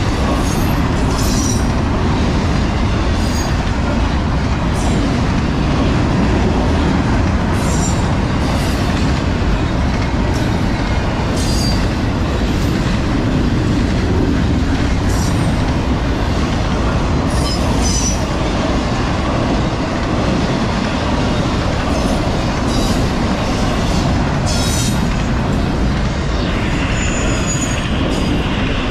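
Norfolk Southern double-stack intermodal freight train rolling past at speed: a steady loud rumble of steel wheels on rail, with short high wheel squeals and clicks every second or two.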